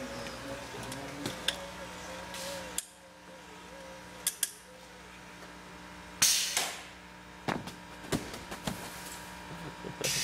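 Competition robot's motor whining and wavering as the cable-spool winch raises the forklift arm, cutting off about three seconds in. A few clicks follow, then a short, loud hiss of air from the pneumatic system a little past the middle.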